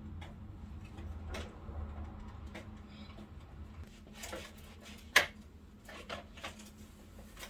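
Scattered light clicks and knocks from handling the plastic casing and parts of a Midea air conditioner during repair, with one sharper, louder knock about five seconds in, over a steady low hum.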